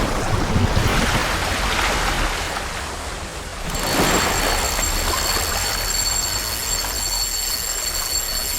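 A steady rushing noise with a low rumble under it. About four seconds in, two thin, steady high tones join it.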